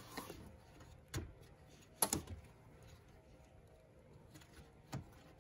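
Faint handling sounds as a hand works the radiator drain under the car. A few light clicks and knocks come at the start, about a second in, in a short cluster around two seconds in (the loudest), and once near the end.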